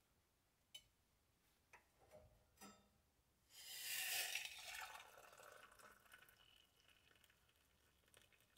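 A few light clicks, then water running for about three seconds, loudest at the start and fading away.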